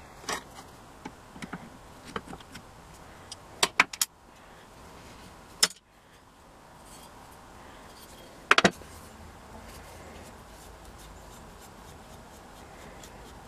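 Metal parts of an old cast-iron Acme staple binder clinking and knocking as the stapler is handled and taken apart. Sharp clinks come in small clusters about four seconds in and again about eight and a half seconds in, with single clicks between.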